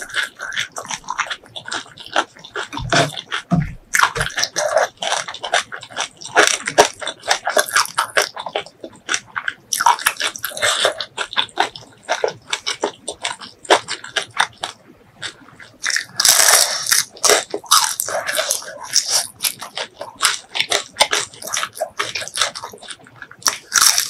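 Close-miked eating sounds: crunchy bites and chewing of crisp fried fish, a dense run of irregular crackles and clicks.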